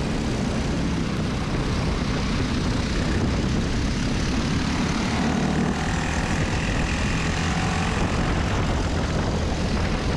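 Briggs & Stratton LO206 four-stroke single-cylinder kart engine running steadily under throttle, heard onboard the kart.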